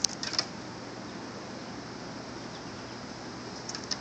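Steady outdoor background noise, with a quick run of light, sharp clicks at the start and a few more just before the end.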